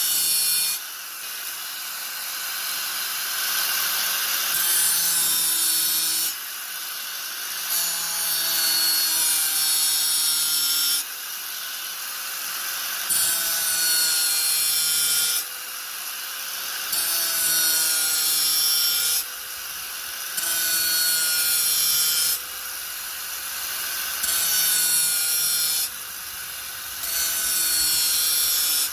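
Angle grinder working in repeated passes: about eight stretches of two to three seconds, each broken by a short drop in loudness, with the motor's whine wavering in pitch.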